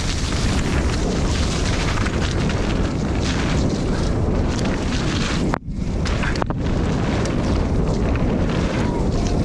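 Wind buffeting the microphone of a rider-mounted camera on a mountain bike descending a trail, a loud steady rush with a sudden brief drop just past halfway.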